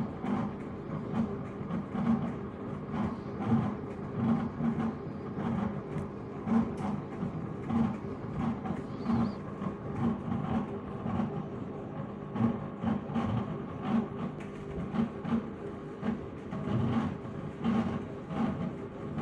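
Washing machine running a wash with a steady motor hum and a strange, irregular knocking clatter about twice a second, a noise that is not normal for the machine.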